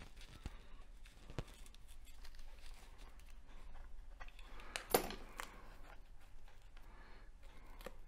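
Faint rustling and small clicks of hands handling turkey biots, with one sharper crisp snap about five seconds in.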